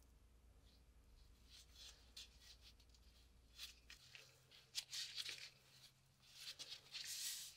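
Faint handling noise: soft rustles of black nitrile gloves turning a rusty WW2 British spike bayonet over in the hands, several in a row and louder in the second half, over a low steady hum.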